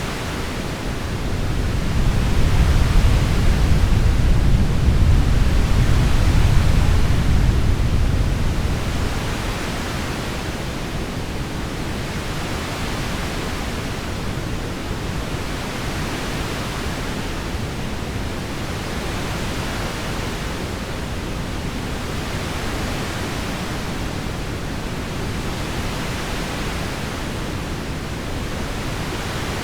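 Steady heavy rain, with a low rumble of thunder that swells up in the first couple of seconds and dies away about nine seconds in.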